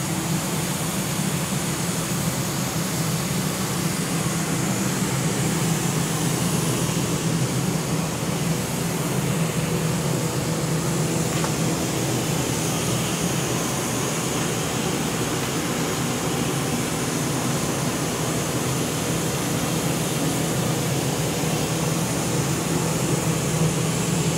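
A steady mechanical drone with a low hum, unchanging throughout, like a fan or ventilation unit running.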